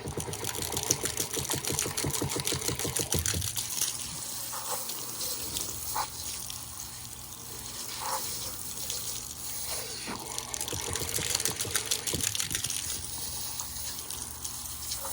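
Water running from a tap and splashing, with a rapid spattering flutter in the first few seconds and a few soft knocks later on.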